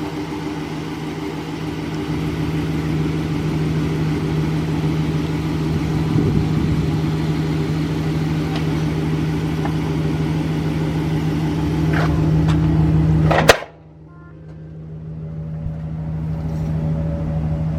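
Wheelchair lift powered by its remote, its electric pump motor running with a steady hum. It cuts off with a sharp clunk about 13 seconds in, leaving a fainter hum that slowly builds again.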